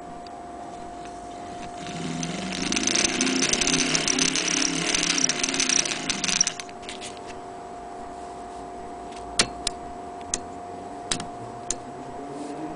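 Antique Frister & Rossmann sewing machine whirring for about four seconds as its mechanism is turned, the pitch rising as it spins up, then fading. A few sharp metal clicks follow from the bobbin winder being handled, and the whir starts again near the end.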